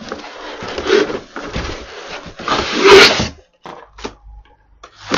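Cardboard packing being handled and pulled out of a cardboard shipping box, its flaps and inserts scraping and rubbing, in two bouts with the louder one about three seconds in.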